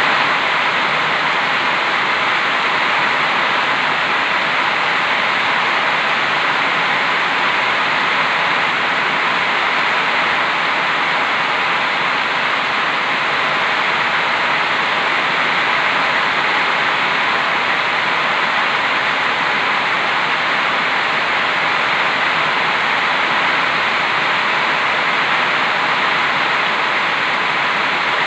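Heavy rain falling: a loud, steady hiss of downpour that holds even throughout.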